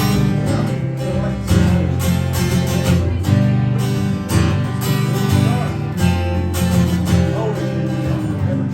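Live acoustic guitar strummed in a steady rhythm, playing a song's instrumental introduction before the vocals come in.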